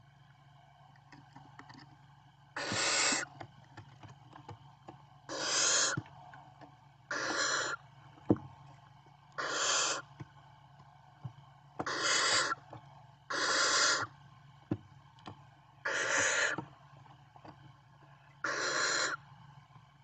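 Barn owl chicks giving their hissing begging calls: eight harsh, breathy hisses, each under a second long, a couple of seconds apart. Between them come a few sharp clicks, the loudest a single sharp click about a third of the way through.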